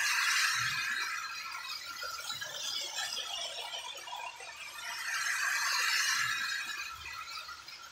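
Lionel Scout O-gauge toy steam train running around its Fastrack oval: a hissing, squealing rush of wheels and motor that swells at the start and again about six seconds in, as the train comes round the curves.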